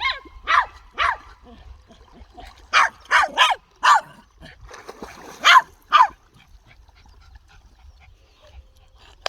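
Dog barking in short, sharp yips, about nine in three clusters, each bark falling in pitch; the barking stops about six seconds in.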